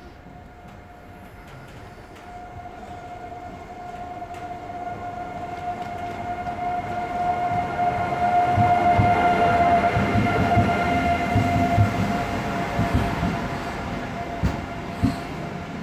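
Renfe Class 730 Alvia train, two units coupled, pulling into a station. The running noise builds to a peak about eight to twelve seconds in and then eases, with a steady whine throughout and repeated clacks of wheels over rail joints as the cars pass slowly.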